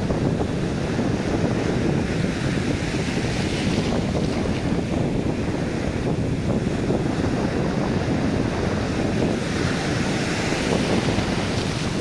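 Sea surf breaking and shallow foamy wash running over a sandy beach, a steady rush of water, with wind buffeting the microphone. The hiss of the wash swells twice.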